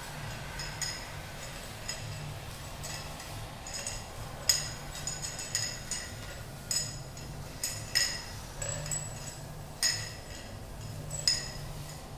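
Small hard objects clinked and tapped together by hand: scattered light clinks with short ringing, a handful of them sharper and louder, over a low steady hum.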